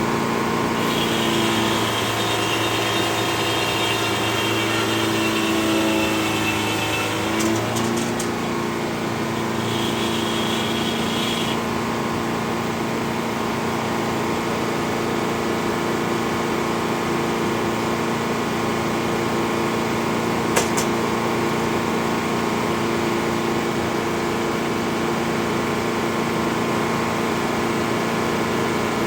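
Engine running steadily at constant speed, with a higher whine over it during the first several seconds and one sharp click about twenty seconds in.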